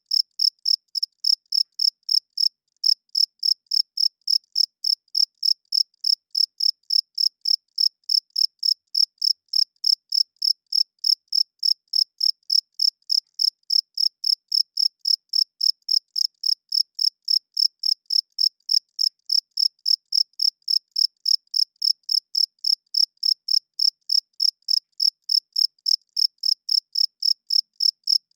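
Crickets chirping: a steady, even train of high-pitched chirps, about three a second. The chirps come from male crickets rubbing their wings together.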